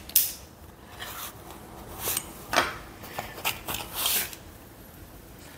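Handling noises: a few light clicks and scrapes as objects are picked up and moved on a wooden desk.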